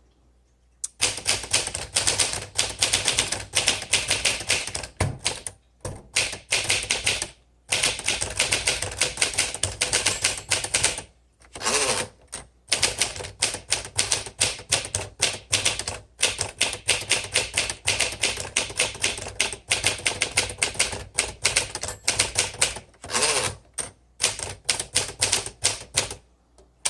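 1957 Smith Corona Silent Super manual typewriter being typed on: quick runs of keystrokes, broken by short pauses.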